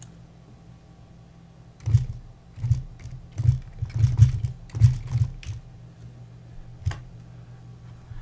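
Computer keyboard typing: a quick run of about a dozen keystrokes over three or four seconds, then one more click a little later.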